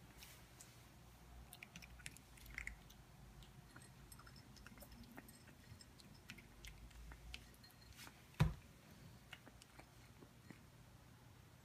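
A Shih Tzu puppy eating dry kibble from a bowl: faint, scattered crunches and clicks of chewing, with one louder thump about eight seconds in.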